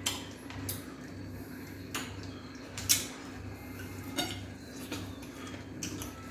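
Dishes and cutlery clinking and tapping in a few scattered sharp knocks, the loudest about three seconds in, over a steady low hum.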